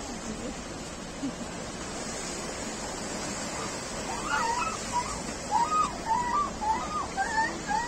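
Small waves washing steadily onto a sandy beach. From about halfway on, a run of short high calls, each a quick rise and fall in pitch, about two a second.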